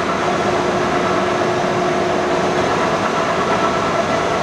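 Steady machinery running noise with a few faint, steady whining tones, unchanging throughout.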